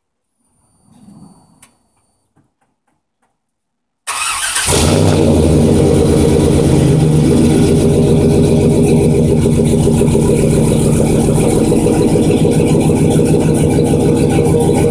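The 1999 GMC Sierra's 5.3-liter V8 cold-starting through a Flowmaster Super 44 two-chamber muffler with the catalytic converters removed: after about four seconds of near quiet it catches suddenly and settles into a loud, steady idle with a very aggressive exhaust note.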